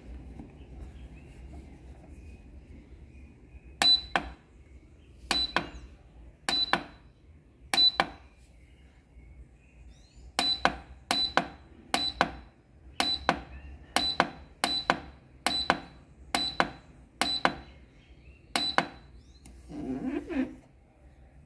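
Mondial bread machine's control panel beeping once per button press: about seventeen short high beeps, the first four spaced over a few seconds, then a quicker run of about two a second, as the program menu is stepped through to the bake cycle.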